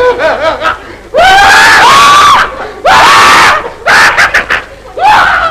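Shrill human screams: four loud cries in quick succession, each swooping up in pitch at the start, the first the longest, with quieter voices in between.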